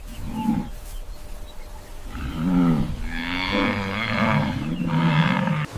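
A large animal's low, drawn-out bellowing call, moo-like, lasting about three seconds and cutting off sharply near the end, after a brief lower grunt at the start.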